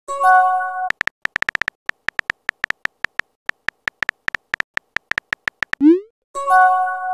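Texting-app sound effects: a short chime as a message appears, then a quick run of phone-keyboard tap clicks as a text is typed. About six seconds in, a rising whoosh and another chime sound as the message is sent.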